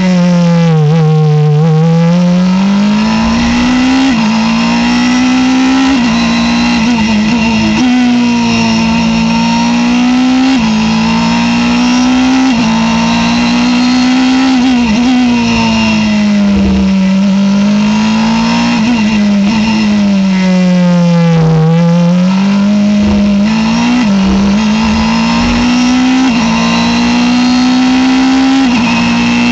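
Norma sports-prototype race car engine heard from the cockpit at full racing pace: revs climbing and breaking sharply at the gear changes every few seconds, and falling away twice under braking into slow corners, about a second in and about twenty seconds in, before climbing again.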